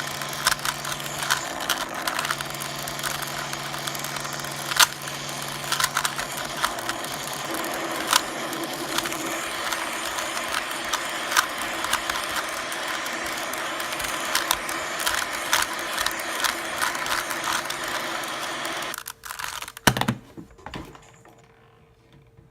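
Rapid, irregular plastic clicking of a Rubik's cube being twisted, with music playing underneath. Both stop abruptly about nineteen seconds in, leaving a few last clicks and a faint hum.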